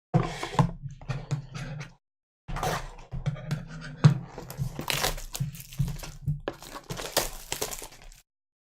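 Trading-card pack wrappers being torn open and crinkled in hand, with sharp tearing snaps. There is a short pause about two seconds in, then the crinkling goes on until near the end.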